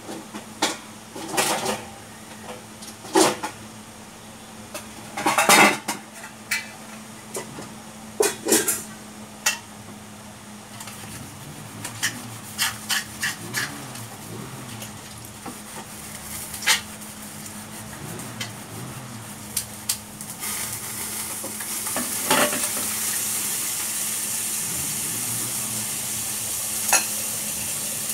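Kitchen clatter: scattered clinks and knocks of pots and utensils, with a steady hiss setting in about twenty seconds in.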